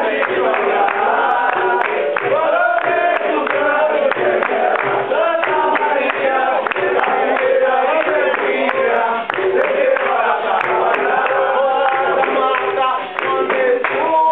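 Capoeira roda music: a group singing in chorus over steady hand-clapping and a regular low percussion beat about twice a second.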